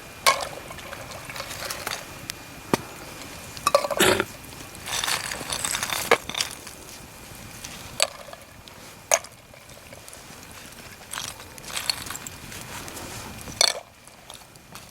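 Irregular clicks and knocks with short rustling stretches in between, like objects or utensils being handled.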